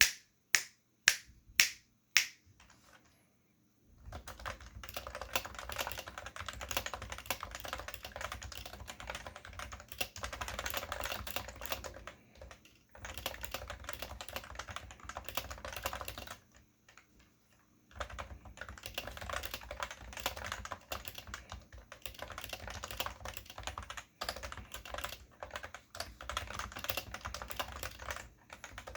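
Topre electro-capacitive switches on a Cooler Master Novatouch keyboard being typed on. It starts with five single loud key strikes about half a second apart, then after a short gap comes fast continuous typing with a few brief pauses.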